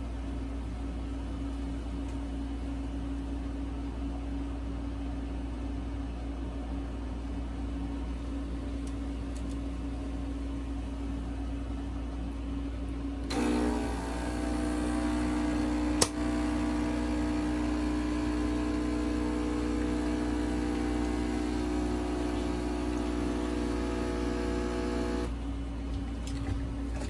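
Nescafé Dolce Gusto Genio S capsule coffee machine brewing: after a steady low hum, its pump starts up about halfway through with a loud, even buzz. The buzz runs for about twelve seconds with a single sharp click a few seconds after it starts, then stops shortly before the end as the shot finishes.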